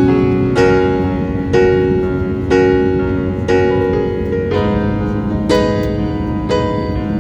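Background piano music: a slow melody with a new note or chord struck about once a second, each ringing and fading.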